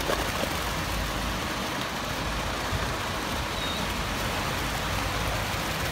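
Concrete mixer truck running steadily while wet concrete slides down its chute: a constant diesel engine hum under a rough, even wash of pouring concrete.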